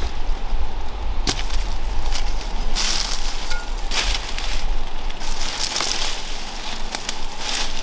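English ivy being stripped from a tree trunk: leaves rustling and vines crackling in irregular bursts, with a steady low rumble underneath.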